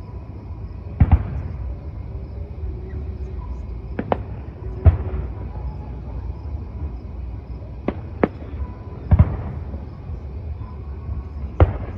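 Fireworks shells bursting overhead: about eight sharp bangs at uneven intervals, some trailing a short crackle, over a steady low rumble.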